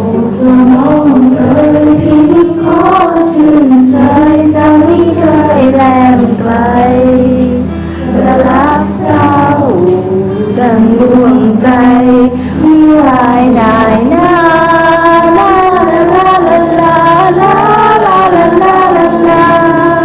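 Background music: a song with a high voice singing a melody over held bass notes.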